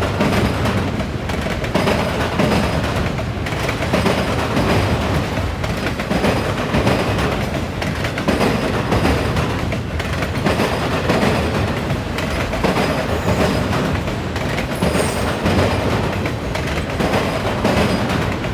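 Auto rack freight train rolling past, its wheels hammering over a railroad diamond crossing in a continuous run of clacks and bangs over the rumble of the cars.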